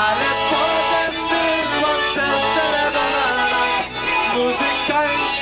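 Polka band playing an instrumental passage of a Polish-language polka, a busy melody running without a break.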